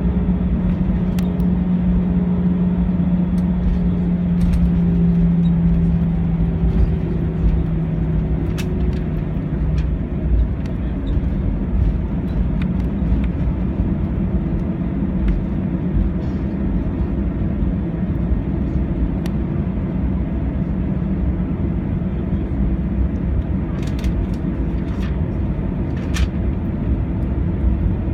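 Airbus A321 cabin noise while taxiing: a steady rumble from the engines at taxi power, with a low whine that eases down slightly in pitch and fades over the first ten seconds, and a few light clicks.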